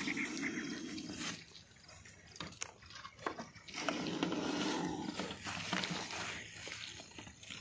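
Indian cobra hissing in long exhalations: one about a second and a half long at the start and a longer one from about four seconds in. Between them, a few sharp knocks as a snake hook tips over the plastic jar that holds the cobra.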